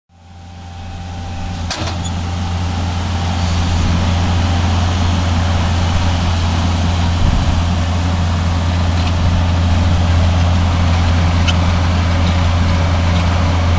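An engine running steadily with a low, even hum, fading in over the first few seconds.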